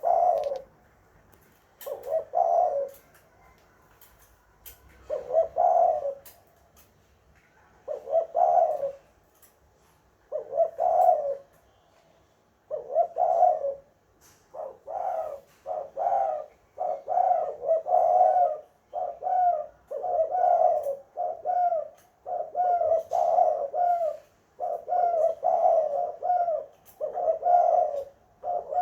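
Spotted dove (tekukur) cooing over and over, its phrases a few seconds apart at first, then coming about once a second from about halfway through.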